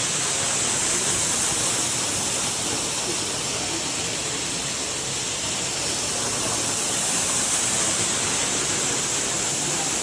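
Steady rushing water, an even hiss-like roar that does not change.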